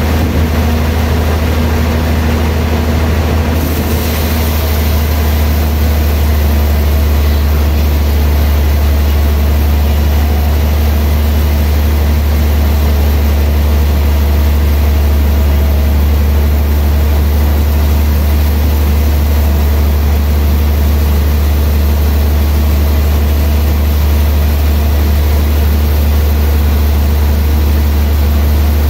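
Large vertical log band saw running steadily, with a loud, even low hum from its drive and blade.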